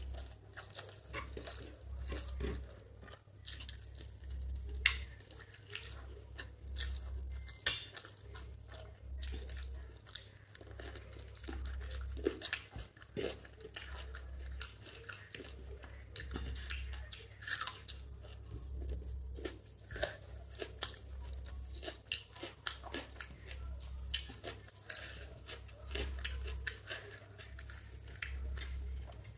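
A person chewing mouthfuls of chicken biryani eaten by hand, heard as irregular short clicks and smacks through the whole stretch. A low hum pulses underneath every two seconds or so.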